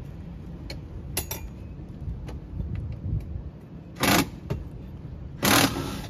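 Work on a motorhome door hinge: a few light clicks and knocks of metal door hardware, then two short, loud bursts of noise about four and five and a half seconds in, over a steady low rumble.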